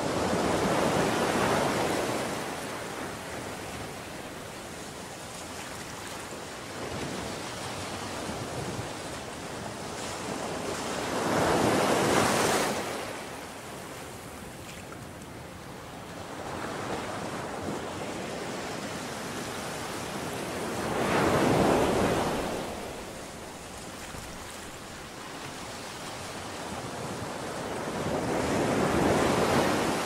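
Ocean surf: four waves break and wash up the shore roughly every nine to ten seconds, each a swell of rushing water that rises and falls away, with a softer steady wash between them.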